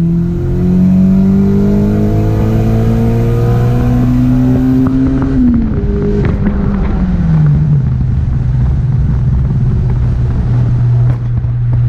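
Turbocharged Acura RSX's K20 four-cylinder engine pulling hard, its note climbing steadily for about five seconds, then falling away as the throttle is lifted, with a few light clicks. It then settles into a steady, even drone.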